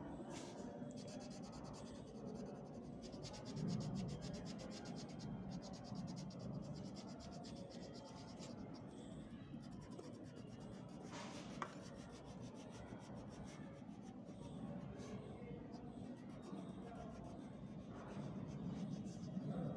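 Faint scratchy rubbing of a yellow crayon on workbook paper as a printed letter is coloured in, with one short click about eleven and a half seconds in.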